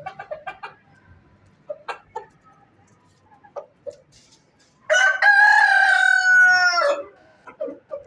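Rooster clucking in short calls, then about five seconds in crowing once: a single loud, drawn-out crow of about two seconds whose pitch sags slightly toward the end. The short clucks resume after the crow.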